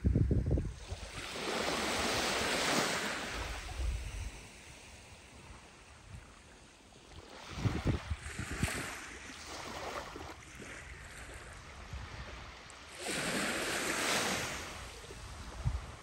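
Small waves of a calm Baltic Sea washing up on a sandy beach, three swells about five or six seconds apart, with wind buffeting the microphone in short low gusts, strongest right at the start.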